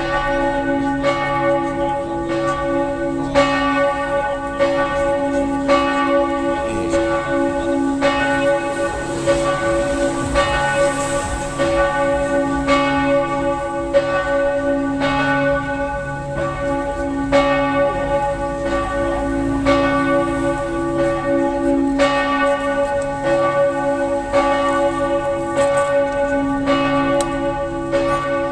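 Several church bells pealing together, recorded on a phone. They strike in a steady rhythm, roughly every three-quarters of a second, and the tones of the different bells ring on and overlap.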